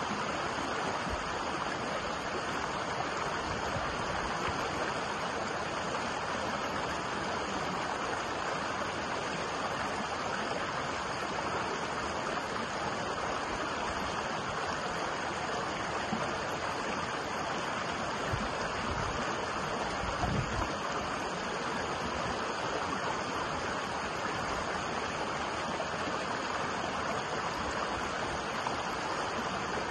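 A shallow rocky stream rushing over and between boulders: a steady, even splash and hiss of running water. A few brief low bumps come about two-thirds of the way through.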